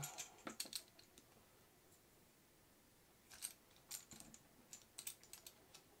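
Faint, scattered small clicks and taps of pliers working a metal MC4 connector crimp contact: a few near the start, then a loose cluster from about three seconds in.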